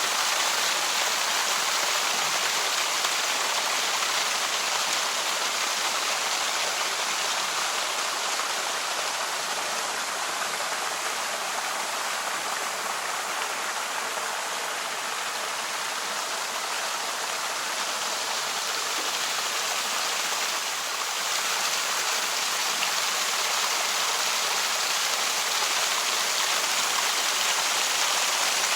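Running water: a steady, even rushing, with slow swells in loudness.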